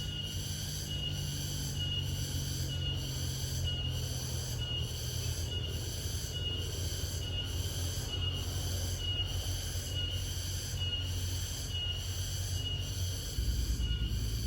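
A wild cricket calling with a continuous high trill that swells about once a second, over a low rumble that shifts near the end.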